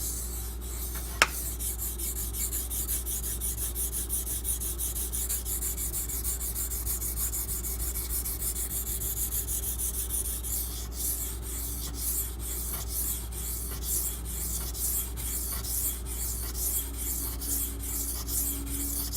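Steel knife blade (8Cr13MoV) stroked back and forth on a Beston 500-grit water stone: a rhythmic scraping of about two to three strokes a second, worked on one side to raise a burr at the belly and tip.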